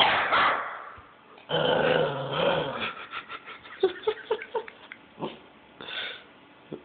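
Puppy barking in bursts: a loud bark at the start, a longer growling bark about a second and a half in, then a quick run of short yips and two more short barks near the end.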